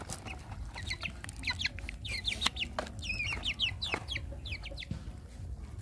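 Chicken calling in a run of short, high, curved peeps, several a second, mixed with wet clicks of puppies lapping milk from a shared bowl.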